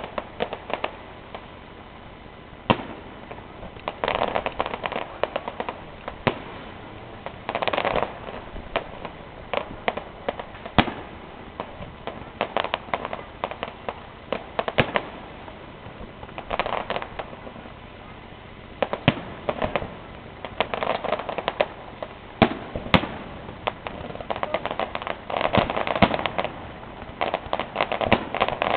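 Fireworks display: a string of sharp bangs from shells bursting overhead, with bursts of crackling several times, thickest near the end.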